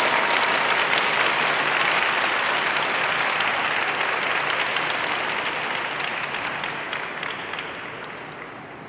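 Arena crowd applauding, the clapping fading away over the last few seconds.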